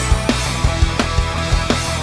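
Background rock music with heavy guitars and a steady drum beat.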